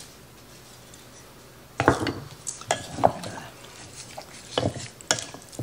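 A wooden spatula stirs raw cubed chicken in a mixing bowl, clacking and scraping against the bowl in irregular knocks that start about two seconds in.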